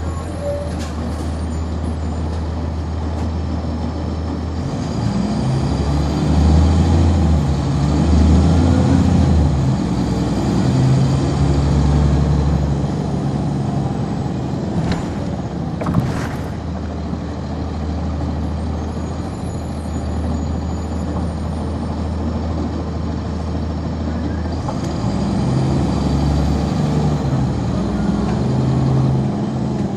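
Interior sound of a 1999 NovaBus RTS transit bus: its Cummins ISC diesel engine and ZF Ecomat automatic transmission running low and steady, then pulling harder about five seconds in with a high whine that rises and then fades. It settles into a steady cruise, with a short sharp knock or hiss around the middle, and pulls harder again near the end.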